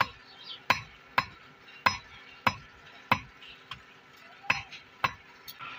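Hand hammer striking red-hot steel held in tongs on a steel anvil block, forging the strip to a point: about ten sharp metallic blows, roughly one every half-second or so.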